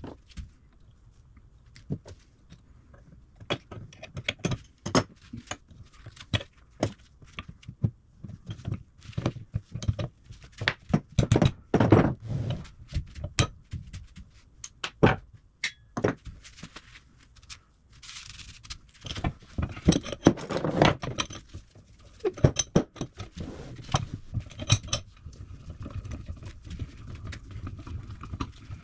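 Hand tools and steel parts of a cast-iron bench vise clinking and knocking during disassembly, irregular sharp taps with a few heavier thunks, busiest about a third of the way in and again past the middle.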